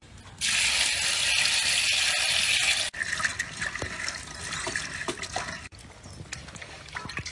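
Loud, steady rushing hiss of a basket of sliced mushrooms tumbling into a large wok of boiling water; it stops abruptly about three seconds in. Then quieter bubbling, with light clicks and scrapes of a spatula against a plate.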